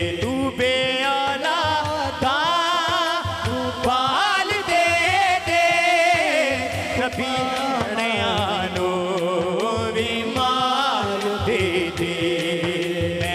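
A male voice singing a hamd, a devotional song in praise of God, drawing out a long wordless line full of wavering ornaments over a steady held drone, with a hand drum keeping a rhythm underneath.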